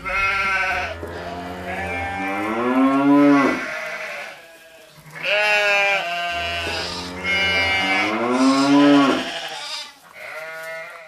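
Long, wavering bleats in the manner of a sheep or goat: two long runs of calls and a shorter one near the end.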